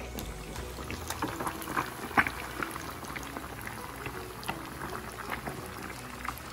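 Fish deep-frying in hot oil: a steady bubbling sizzle with many irregular sharp crackles and pops, one loud pop a little over two seconds in.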